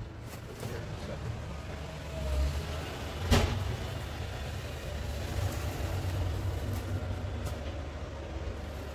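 Goods being handled in a pickup truck's bed: a low steady rumble with one sharp knock about three seconds in.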